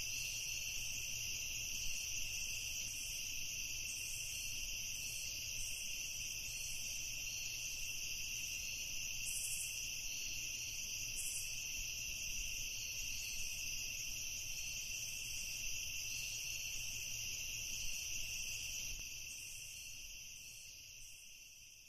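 A steady chorus of chirping insects, fading out over the last few seconds.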